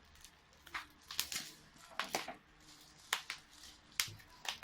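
A package being opened by hand: an irregular series of sharp snaps, crackles and rustles of packaging being pulled and handled.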